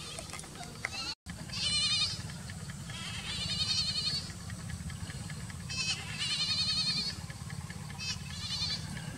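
Goats bleating: about six high, quavering bleats, some short and some nearly a second long, over a steady low hum.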